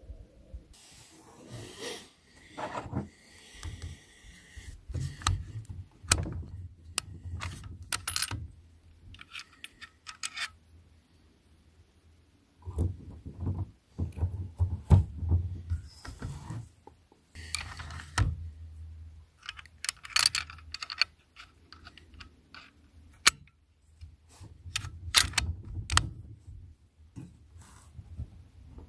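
Scattered metallic clicks, rattles and knocks of a rifle and its scope being handled and adjusted between shots.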